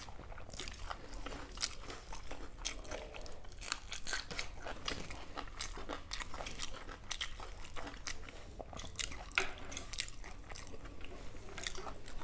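Crisp, deep-fried prawn fritters being bitten and chewed: many short, irregular crunches mixed with chewing.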